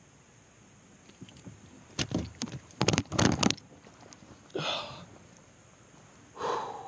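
A landed trout being handled in a kayak: a quick run of sharp knocks and slaps, the loudest sounds here, then two short breathy puffs.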